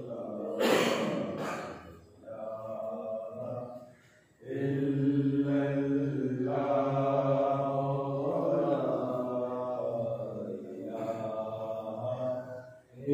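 A man's voice chanting Sufi dhikr in long, drawn-out held notes, with short breaks between phrases. A brief breathy rush of noise cuts in about a second in.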